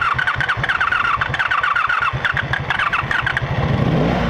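Electric starter cranking a 1985 Honda Magna 700's V4 engine in an even, pulsing whir for about three and a half seconds before the engine catches near the end. A hard start, which the rider puts down to a failing fuel pump starving the engine of fuel.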